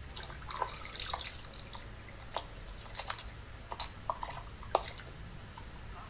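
Water splashing and dripping in small, irregular plops and clicks, over a low steady rumble.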